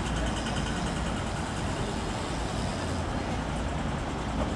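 Steady city street traffic: cars moving slowly past at close range, a continuous low engine and tyre rumble.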